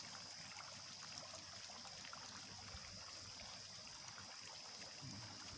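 Faint rustling and crinkling of young coconut-leaf strips being threaded through a half-woven ketupat casing, over a steady high hiss.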